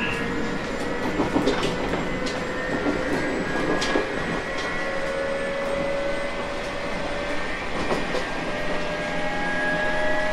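Running sound of a JR East 719 series electric train, the whine its fans call the "jet sound": steady electrical whining tones that rise slowly in pitch, over rail noise. A few sharp clicks from the wheels over rail joints.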